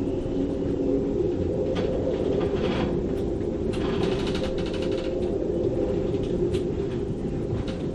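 Storm wind gusting through a moored sailboat's rigging: a steady low roar with a howling tone, broken by a few short rattles and clicks, the busiest cluster about four seconds in.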